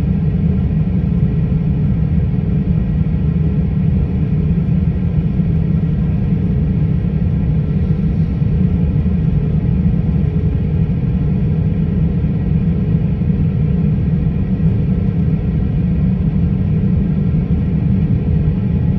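Jet airliner engines and airframe heard from inside the cabin while taxiing: a steady low rumble with a faint hum above it.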